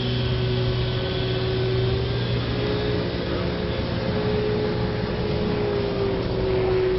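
Chrysler Turbine Car's gas turbine engine running as the car moves at low speed, a steady whine and hum whose pitch wavers slightly.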